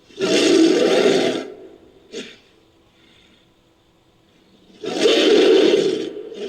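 Designed giant-ape creature sound effect for Gigantopithecus, built from King Kong and monster roar recordings: two loud roars, each about a second and a half long, with a short grunt between them about two seconds in.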